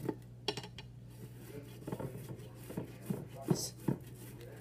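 A soft, microwaved potato rubbed across a flat metal cheese grater, with faint rasping and the grater knocking against a plate in sharp, irregular clinks, about six or seven of them.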